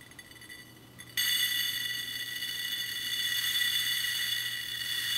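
Background music: a held, high chord of steady ringing tones comes in faintly, then jumps much louder about a second in and holds steady.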